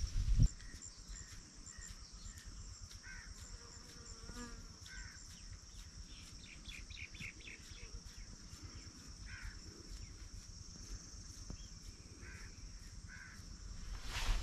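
Outdoor ambience: a steady high-pitched insect drone with scattered short bird chirps, and a brief thump right at the start.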